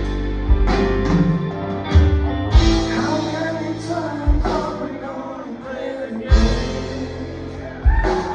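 Live rock band playing a slow song: drum hits every second or two over held electric guitar and bass chords, with singing.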